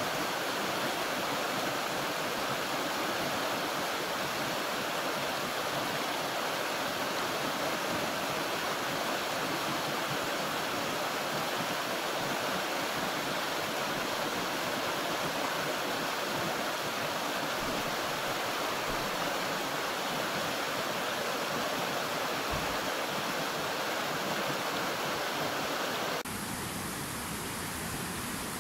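Mountain stream rushing and splashing over rocks: a steady, dense rush of water. About 26 seconds in it changes abruptly to a slightly quieter rush with a different tone, that of a wide, fast river.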